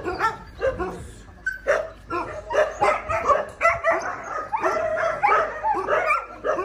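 Several dogs barking and yipping over one another in a shelter pen, short high calls packed close together, with a brief lull about a second in.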